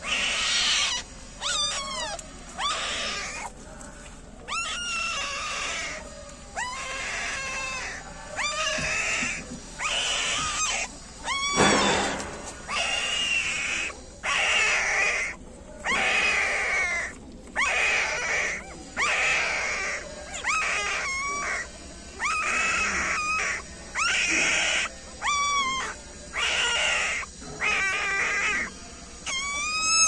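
Newborn puppies crying: a steady run of short, high, wavering squeals, roughly one a second.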